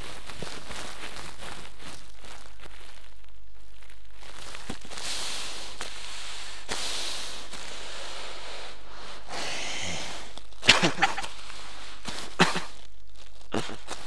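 Steady recording hiss, with rustling through the middle and a few sharp knocks and clicks in the second half, the loudest a quick cluster about three-quarters of the way in: someone moving about and handling things in the dark.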